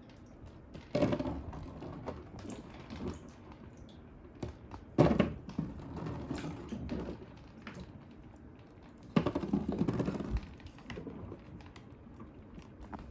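Small hard pieces clicking, knocking and clattering against a wooden marble-run slider track, in bursts about a second in, about five seconds in, and again around nine to ten seconds in.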